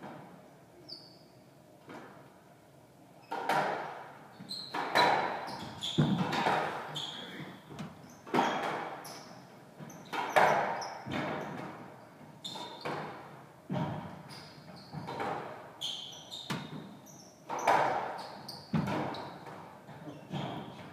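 A squash rally starts about three seconds in: the ball smacks sharply off rackets and the court walls every second or so, often two hits close together, each ringing briefly in the court. Short high shoe squeaks on the wooden floor come between the hits.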